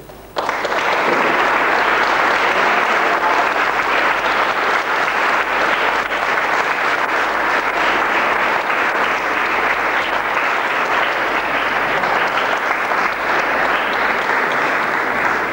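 Wedding guests applauding in a church, a dense steady clapping that starts suddenly about half a second in.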